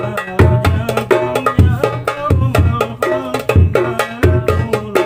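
A hadroh ensemble playing a steady rhythm: deep booms from the hadroh bass drums under quick, sharp darbuka strokes and ringing hand-drum tones.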